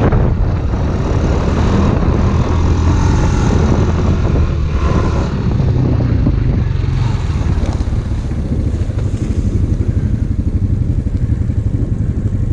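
Off-road vehicle's engine running steadily while riding. In the second half it eases off to a lower, evenly pulsing note.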